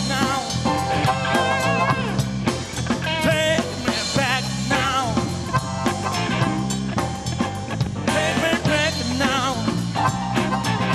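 Blues-rock band playing live: electric bass, electric guitar, keyboard and drums with a steady beat. Over them runs a lead line of wavering, bent notes.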